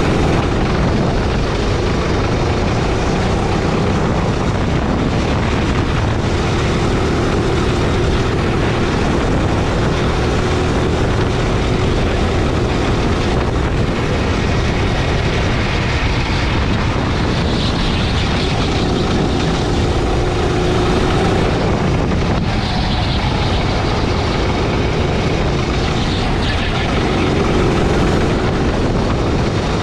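Sodi gasoline go-kart's small petrol engine running hard through a lap, its buzzing note rising and falling several times as the driver comes off and back on the throttle through the corners.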